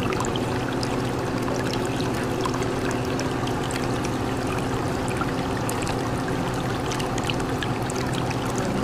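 Steady trickling and bubbling water with many small crackling pops, over a low steady hum, as from water running in an aquarium.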